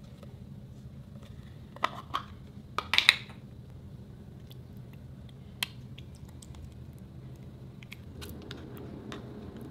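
Small plastic slime tub being opened and handled: a cluster of sharp plastic clicks and snaps about two to three seconds in, one more click a little later, then faint ticks as the tub is tipped over into the bowl.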